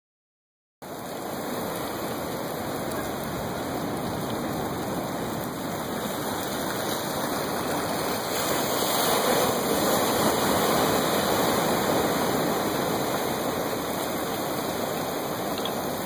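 Ocean surf rushing and washing below the pier, with no distinct beat, starting a moment in and swelling louder about halfway through as a wave breaks.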